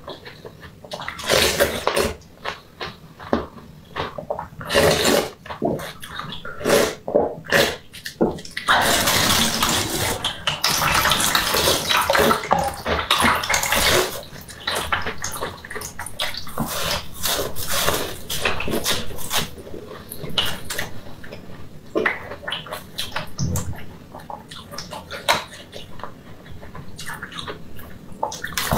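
Close-miked eating of a block of frozen red drink: sharp icy crunches and bites, with a long continuous slurp of about five seconds a third of the way in.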